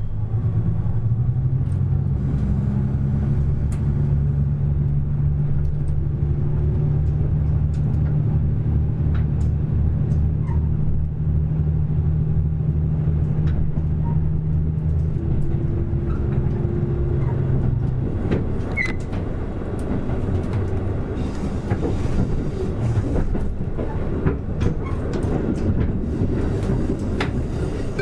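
Diesel engines of a KiHa 85 series railcar droning steadily under power as the train pulls away, heard inside the car. About two-thirds of the way through the drone gives way to a rougher rolling rumble with wheel clicks over rail joints.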